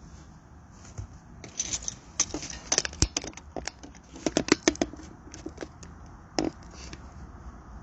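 A rapid run of close rustling and crackling clicks, densest from about two to five seconds in, with one more click near the end.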